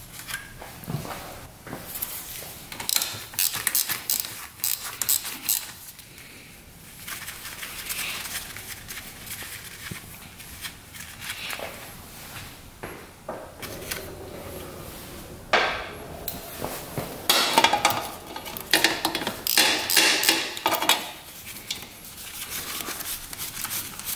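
Wrenches and metal engine parts clinking and clanking irregularly as the top end of a 1982 Yamaha YZ125 two-stroke is taken apart, louder and busier about two-thirds of the way in.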